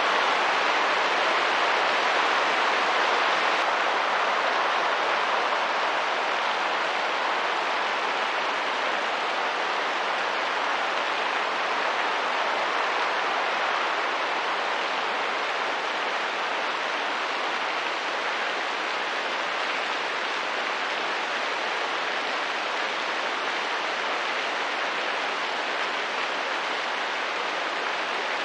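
Steady rain hiss, even and unbroken, growing slightly quieter over the stretch.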